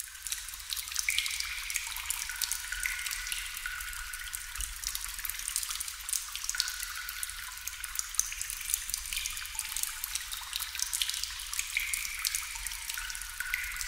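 Water dripping: many drops landing in quick succession, a steady patter of small clicks with frequent short, pitched plinks at varying pitches.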